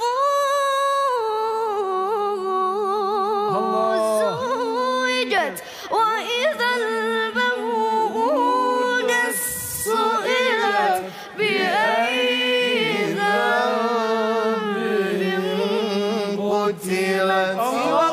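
A qari's solo voice reciting Quran verses in melodic tajweed style. He holds long ornamented notes with a quick vibrato and slides between pitches, with brief pauses for breath.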